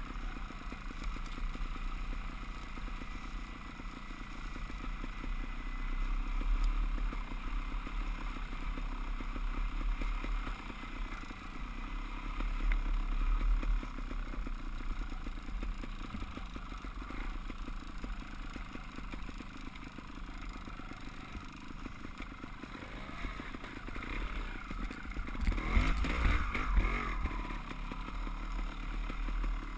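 Dirt bike engine running under varying throttle, its pitch rising and falling, with the clatter of the bike jolting over rough ground; the loudest, busiest stretch comes near the end.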